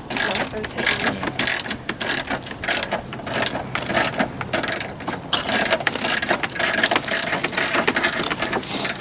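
Hand ratchet wrench clicking in quick bursts while bolts on a car's front end are loosened.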